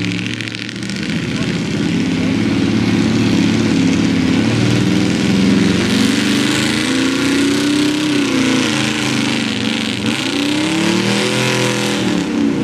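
Pickup truck's engine working hard under load as it pulls a weight-transfer sled down a dirt track. Its pitch climbs and drops twice in the second half, over a steady hiss.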